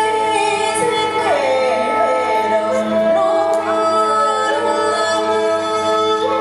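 Traditional Vietnamese music from a water puppet theatre's live ensemble: a woman sings a wavering melodic line over held instrumental notes, with a few sharp percussive clicks.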